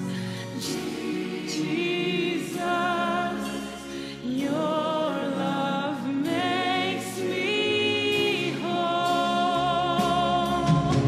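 A woman singing a slow gospel song over musical accompaniment, holding long notes with vibrato.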